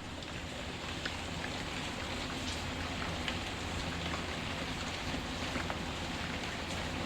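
Steady rain with scattered small crackles and pops from a wood fire, over a low steady rumble.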